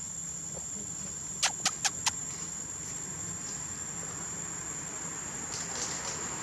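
Forest ambience: a steady hiss with a thin, high insect-like drone. Four quick, sharp clicks come in a row about a second and a half in.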